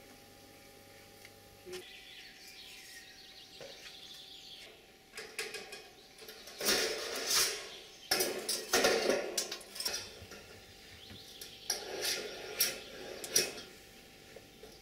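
Irregular bursts of clattering and clicking from small hard objects being handled and knocking together, starting about five seconds in and returning near the end.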